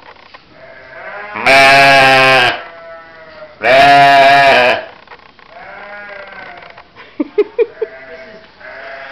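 Sheep bleating: two loud, drawn-out bleats of about a second each, a couple of seconds apart, then fainter bleats. Near the end come four quick sharp clicks.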